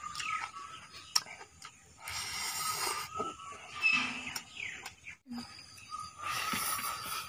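Close-up eating sounds of a man eating curry and rice by hand: wet lip smacks and chewing clicks. Two longer hissing sounds of about a second each come near the middle and near the end.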